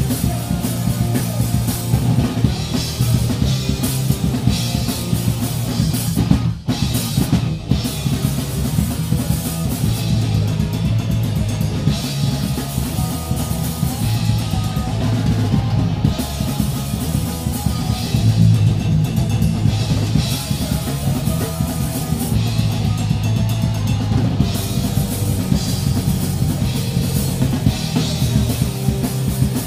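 Rock drum kit played loudly, bass drum and cymbals driving a steady groove, over a loud amplified band playing sustained low notes. The music drops out for two split-second breaks about seven seconds in.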